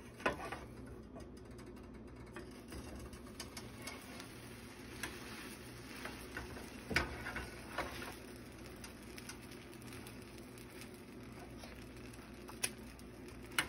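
A spatula knocking and pressing against a stainless steel frying pan as a grilled cheese sandwich cooks: a few short sharp clicks, the loudest about halfway through and two more near the end, over a faint steady background.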